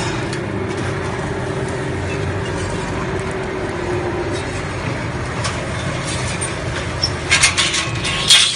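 Sheet-metal slitting machine for HVAC duct running with a steady motor hum, with a cluster of sharp clatters near the end.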